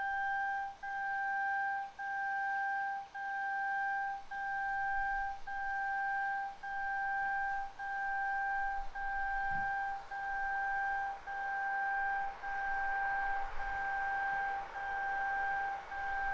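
Level-crossing warning signal sounding a two-note electronic tone in even, repeating pulses. Toward the end a rising rush comes in underneath from an approaching EN57AL electric multiple-unit train.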